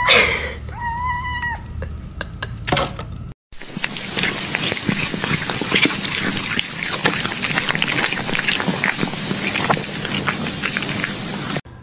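A cat gives a short, level, meow-like call about a second in. After a brief cut, dense crackling and sizzling follows, like food on a grill, played from a tablet video, and it stops abruptly near the end.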